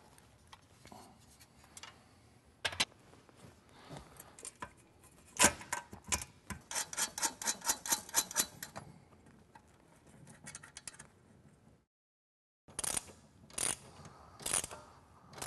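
Bolts and mounting hardware clicking and clinking against a seat's steel frame as the seat mounts are fitted and tightened, with a quick run of evenly spaced clicks in the middle like a ratchet. The sound cuts out briefly near the end, then a few sharp knocks.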